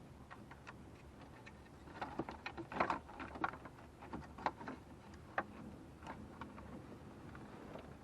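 Faint, irregular clicks and light taps of a wrench and plastic dashboard parts being worked by hand, bunched between about two and five and a half seconds in.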